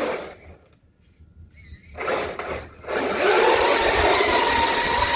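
Traxxas Hoss RC truck's brushless electric motor whining and its tyres spinning on ice: a short burst about two seconds in, then steady running at speed from about three seconds.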